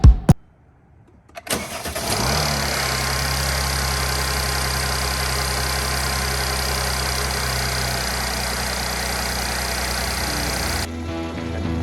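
Mercedes-Benz GLK 350's 3.5-litre V6 starting after a short crank, then idling steadily, its ignition coil packs freshly replaced. Music cuts in near the end.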